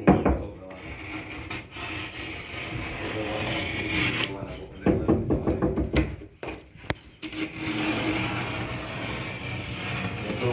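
Sheetrock being cut by hand along a marked line: a long, even rasping scrape that goes on for several seconds, pauses, and starts again. A knock opens it, and a few sharp clicks fall in the middle.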